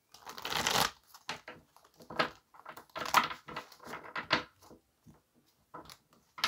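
A tarot deck being shuffled by hand: cards rustling and slapping against each other in irregular bursts.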